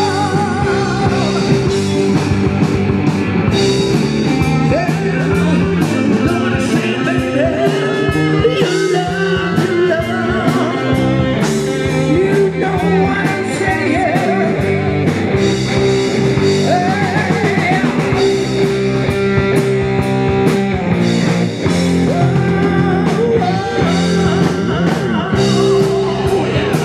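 A rock band playing live, with electric guitar, keyboard and drum kit, and a man singing lead vocals.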